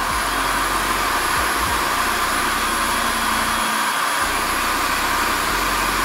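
Bosch corded electric drill running at steady full speed, its chuck's knurled sleeve pressed against an office chair caster wheel to spin it against a cleaning cloth. A high steady motor whine over a dense rushing hiss.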